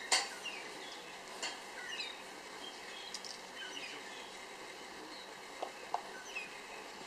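Scattered bird chirps, short quick falling whistles, over steady outdoor background noise, with one sharp click just after the start.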